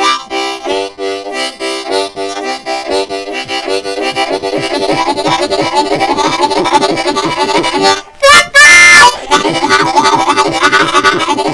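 Diatonic harmonica in C playing a train imitation: rapid alternating draw and blow chords chugging, starting slower and speeding up into a fast steady pulse, driven from the throat without tongued syllables. A little over two-thirds through, a short high bright chord breaks in like a train whistle before the chugging resumes.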